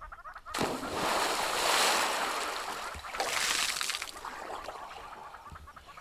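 A man diving into a reservoir: a loud splash about half a second in as he hits the water, then splashing and sloshing water as he swims, surging again about three seconds in before it eases.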